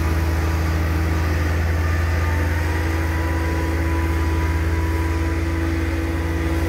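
Heavy diesel tipper truck's engine running steadily at low speed as it creeps along with its tray tipped, spreading gravel chips over fresh bitumen: a deep, even hum with a steady whine above it.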